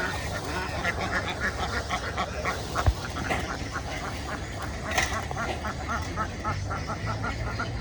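A large flock of domestic ducks quacking continuously, many short overlapping calls, over a steady low hum. A sharp thump comes about 3 seconds in and a brief crack about 5 seconds in.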